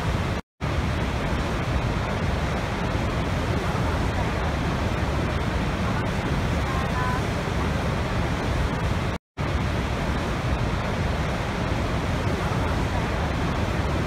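Steady, deep rush of a large waterfall, Niagara's Horseshoe Falls, heard from the brink: heavy falling water, even throughout. The sound cuts out completely for an instant twice, about half a second and nine seconds in.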